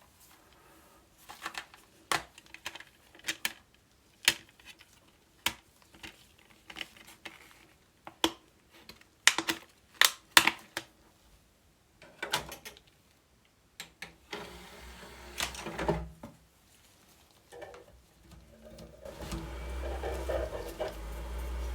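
Irregular sharp clicks and knocks of small hard parts being handled. About two-thirds of the way in they give way to a steady mechanical running sound with a low hum underneath.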